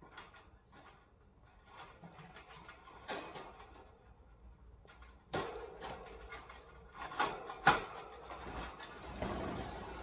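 Metal wire parts of a bird cage clicking and rattling as they are handled and fitted together, with several sharper knocks, the loudest a little past seven seconds in.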